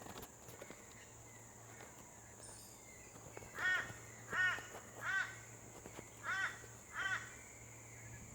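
A bird calling five times, short calls in a run of three and then two, over a faint steady hum.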